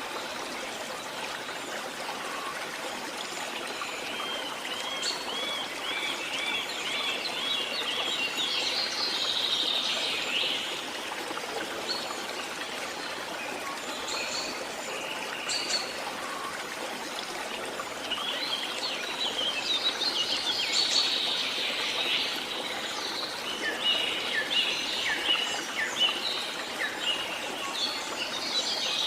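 Small birds singing and chirping over the steady rush of a flowing stream. A run of quick repeated chirps starts about four seconds in, and livelier song returns in the second half.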